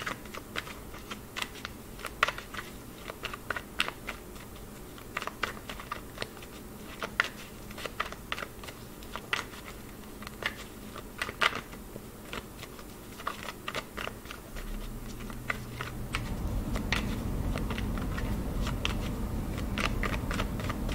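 A deck of tarot cards being shuffled by hand: an uneven run of soft clicks and slaps as cards drop from one hand to the other. A low steady hum comes in about three-quarters of the way through.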